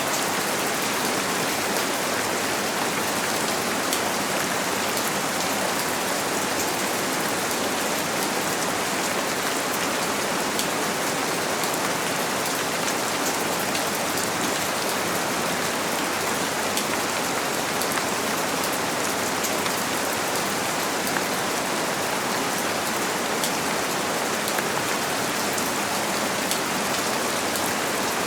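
Steady rain falling on a window pane, mixed with white noise for a baby's sleep: an even, unchanging hiss with faint scattered drop ticks.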